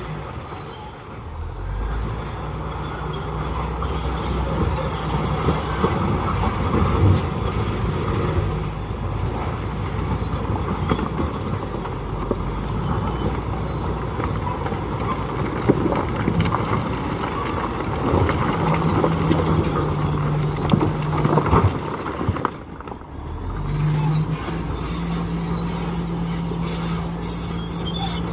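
Heavy earthmoving machinery: a diesel engine running steadily, with rattling and frequent metal clanks. The sound drops out briefly about three quarters of the way through, then resumes.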